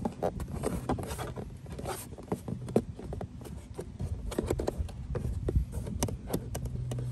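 Hard plastic door storage organizer being pushed and wedged by hand into a Smart ForTwo 453 door pocket: scattered clicks, knocks and scrapes of plastic on plastic, with a couple of sharper knocks.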